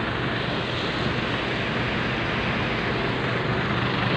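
Steady, even rumble of large diesel vehicles (buses and trucks) running and pulling through, with a low hum underneath.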